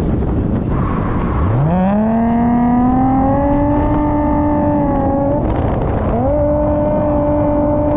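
Car engine revving hard from low to high revs and held there under load, over a rushing haze of tyre and wind noise. The revs drop briefly around six seconds in, then climb straight back up and hold, as in a car being driven sideways on the throttle.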